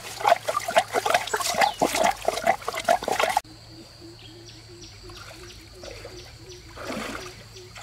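Muddy pond water splashing and sloshing. It breaks off abruptly about three and a half seconds in, leaving a quieter stretch in which a short animal call repeats about three times a second over a low steady hum.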